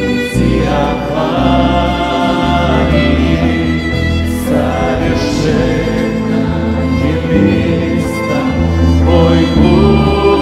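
Christian worship song sung in Russian, with singing voices over piano and a low bass line that changes note every second or two.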